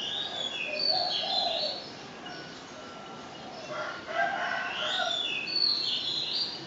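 A bird calling twice, each long call lasting about two seconds, over a steady low hiss.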